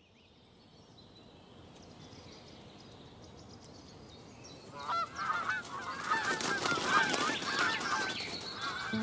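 Faint ambience with a few high chirps fades in, then from about five seconds in a flock of geese honks, many calls overlapping.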